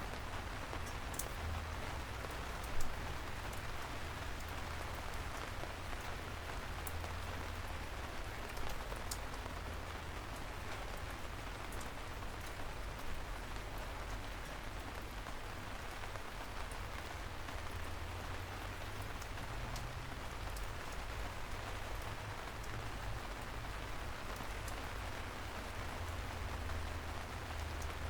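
Steady rain falling: an even hiss with scattered individual drops ticking and a low rumble underneath. One louder drop or tap lands about three seconds in.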